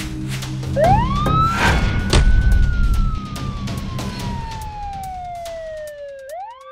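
Siren wail sound effect over background music: it rises quickly about a second in, falls slowly over about five seconds, then rises again near the end. A loud whoosh and hit come in with the first rise.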